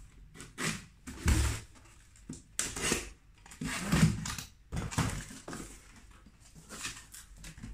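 Cardboard box being opened by hand: packing tape peeled off and the flaps pulled open, in a string of separate scrapes, rips and rustles, with a dull knock about a second in.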